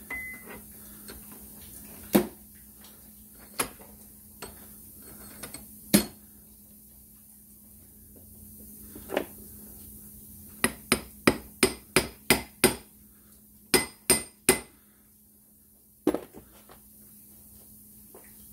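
Hammer blows on the steel handlebar spindle of a 1973 Moto Guzzi Eldorado, clamped in a vise, with sharp metallic strikes. First come a few single blows spread out, then two quick runs of blows at about three a second. He is working at the rest of a bearing stuck on the spindle.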